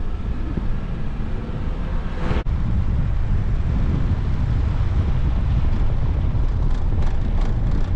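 A vehicle driving on a dirt road: a steady low rumble of road and wind noise. The sound cuts abruptly about two seconds in, and the rumble then goes on a little louder.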